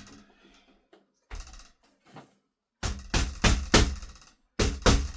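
Background music with a steady beat of about four strikes a second over a held bass note, coming in about three seconds in after a few faint small knocks, breaking off briefly and starting again near the end.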